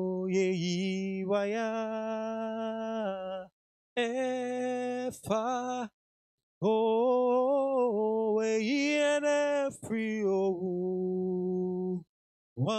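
A man singing a slow worship song solo into a microphone, in long held notes, with no instruments. The phrases break off into short silences three times.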